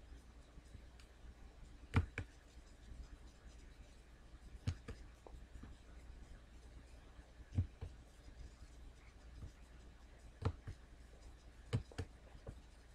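Computer mouse clicking: about eight or nine short, sharp clicks at irregular intervals of one to three seconds, faint against a low steady hum.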